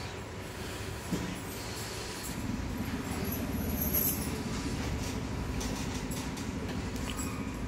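Steady rumble of a moving vehicle, growing louder about two seconds in and then holding steady.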